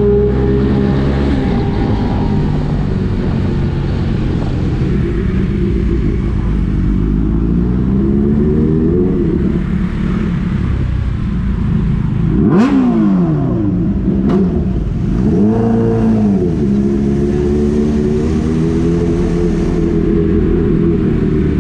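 Motorcycle engine running at low speed in traffic, its revs rising and falling with the throttle. There is a quick sharp rev rise with a click about twelve and a half seconds in, and another click shortly after.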